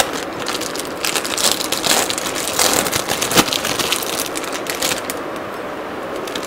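A cheese slice's wrapper crinkling and rustling as it is peeled off. A quick run of crackles dies down about five seconds in.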